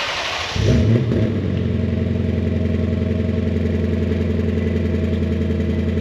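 A Lexus GS F's 5.0-litre V8 (2UR-GSE) starts through an RR Racing Bazooka valved axle-back exhaust with its valves closed. It cranks, catches about half a second in and flares briefly, then settles into a steady idle.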